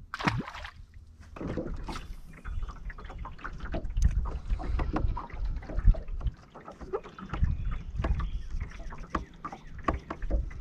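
A short splash as a released bass drops back into the lake, then wind buffeting the microphone and water slapping against the boat's hull, uneven and gusty throughout.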